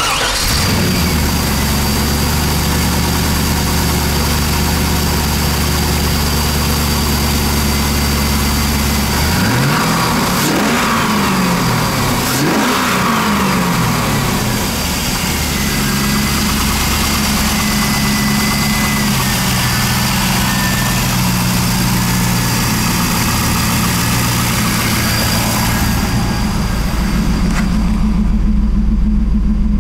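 A 2000 Camaro Z28's 5.7 L LS1 V8, with 174,000 miles on it, idling steadily and revved twice in quick succession about ten seconds in, each rev rising and falling back to idle. Near the end it is heard muffled from inside the car's cabin.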